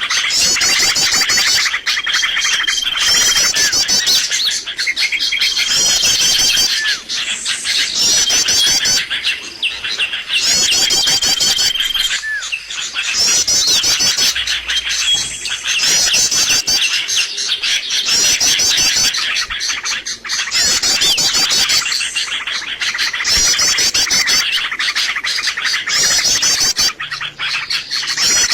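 Bird-lure recording of small songbirds: dense, continuous chirping and twittering, with a few short held whistles.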